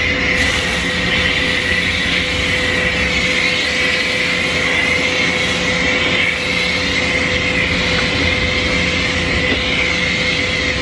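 Pressure-washer foam cannon spraying steadily: a loud, even hiss of water and foam, with a steady hum under it.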